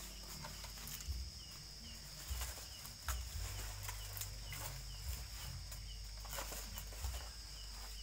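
Steady night insect chorus with a short chirp repeating about twice a second, and scattered knocks and thumps as a bamboo ladder is handled and set against a tree.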